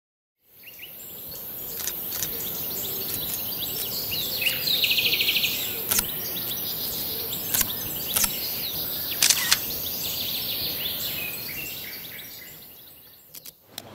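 Birdsong ambience with chirps and a rapid trill about five seconds in. It fades in at the start and out near the end, with a few sharp clicks over it.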